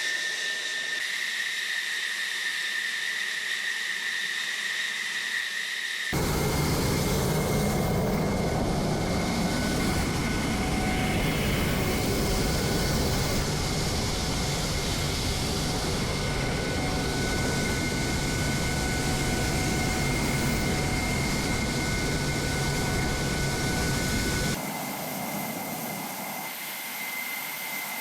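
Fighter jet engine running on the ground: a steady high-pitched whine over a rush of noise. About six seconds in it changes abruptly to a louder, fuller rush with the whine still in it, and near the end it drops back to a thinner, quieter whine.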